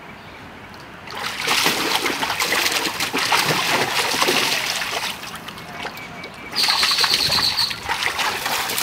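Large dog pawing and splashing in the water of a shallow kiddie pool. The splashing starts about a second in, eases off for a moment after the middle, and picks up again near the end.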